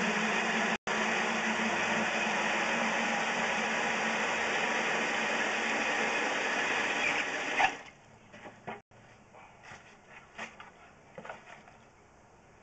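A steady mechanical whirring with a low hum, cutting off suddenly about eight seconds in, after which only faint scattered knocks and clicks remain.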